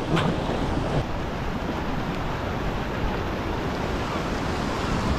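Steady rush of ocean surf, with wind buffeting the microphone.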